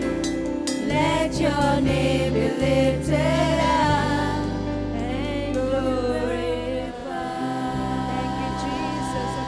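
Christian worship song: singing over held keyboard chords and a bass line, the voices entering for two phrases in the first two thirds.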